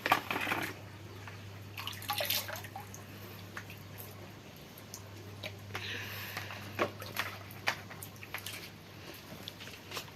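Water splashing and dripping, with scattered light knocks and clicks over a faint steady low hum.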